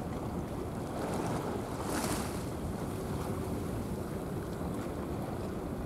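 Wind buffeting the microphone over a steady low rumble and wash of water, with a brief hiss about two seconds in.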